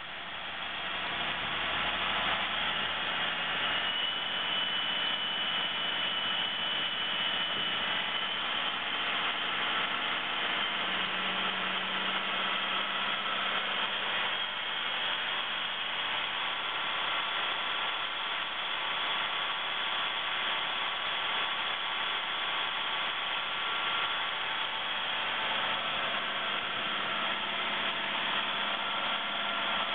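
An International MRAP's D8.7I6 inline-six turbodiesel running steadily while warming up, with a high turbocharger whistle over the engine sound. The sound builds over the first two seconds, then holds level.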